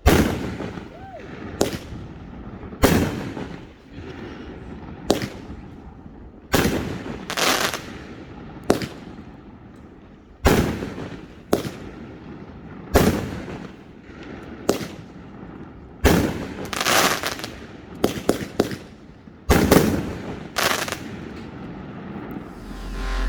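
A 9-shot 200 g Pyro Diablo firework cake firing: shells launching from the tubes and bursting with sharp, loud reports, every second or so. There is a quick run of bangs near the end for the finale.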